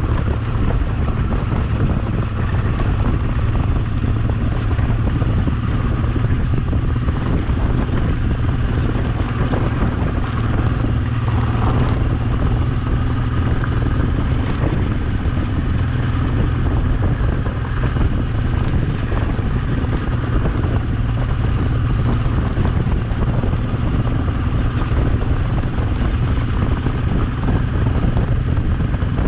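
Honda Transalp XL650V's V-twin engine running steadily under way, with wind noise on the microphone.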